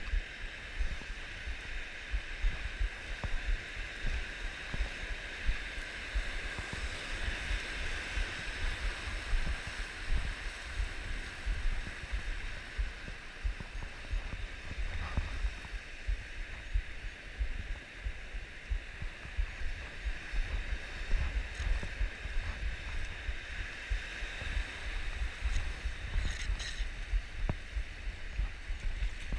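Wind buffeting the microphone in irregular low thumps over a steady hiss.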